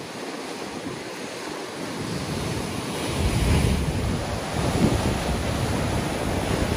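Ocean swell breaking and washing white water over a rock ledge, building louder about three seconds in, with wind buffeting the microphone.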